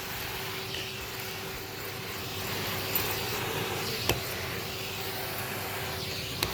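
Numatic Henry vacuum cleaner running steadily, its hose sucking at carpet without the floor nozzle: a constant rushing noise with a steady hum, broken by a few sharp clicks about halfway through and near the end.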